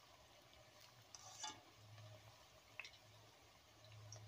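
Faint sizzle of batter-coated cauliflower pieces deep-frying in oil in a kadai. A wire skimmer turning the pieces makes a few light scrapes and clicks, about a second and a half in and again near three seconds.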